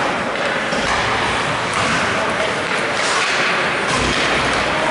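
Ice hockey game in an indoor rink: a steady wash of rink noise with indistinct voices of spectators and players.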